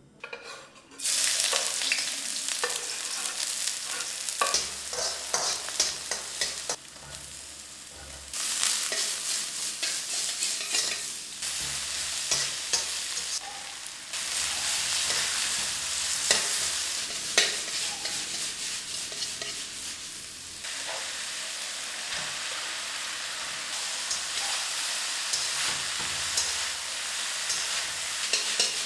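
Food sizzling in a hot pan while being stirred, with frequent small scraping clicks from the spatula against the pan. The sizzle starts about a second in and dips briefly a few times.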